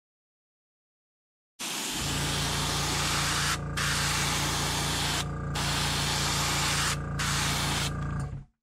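Airbrush spraying paint: a loud, steady hiss that starts about a second and a half in and runs in four passes, breaking off briefly three times, over a steady low hum. It stops just before the end.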